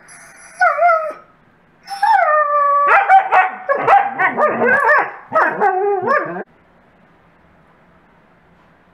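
Wolfdogs whining and yipping in play: a short whine, a longer falling whine, then a few seconds of rapid, pitch-bending whines and howl-like yips that stop abruptly about six and a half seconds in.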